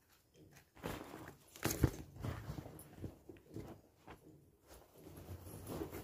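Bedding and a woven floor mat being handled and spread on the floor: irregular rustling and scraping, with one sharp knock about two seconds in.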